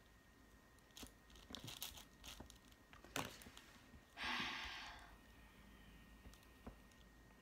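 Plastic twisty puzzle cube being turned by hand: faint scattered clicks, then a louder rasping burst of turning about four seconds in.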